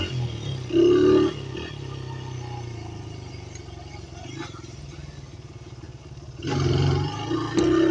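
Dirt bike engine running under way, revving hard briefly about a second in, easing off to a lower, quieter drone, then opening up loudly again near the end.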